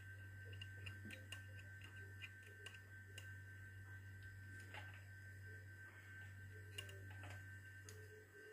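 Near silence: a faint steady high tone over a low hum, with a few light clicks scattered through.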